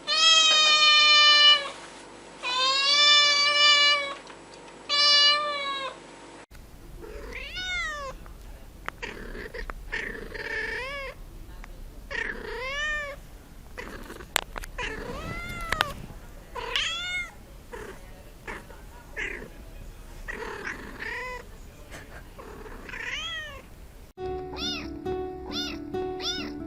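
Cats meowing repeatedly. The first four meows are loud and drawn out. After them come shorter meows, each rising and falling in pitch, about one every one to two seconds.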